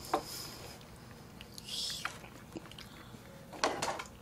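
Quiet eating sounds: soft chewing and a few light clicks of chopsticks against bowls and plates, with a small cluster of clicks near the end.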